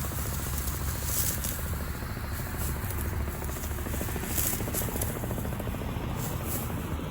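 An engine running steadily with a low, fast-pulsing rumble.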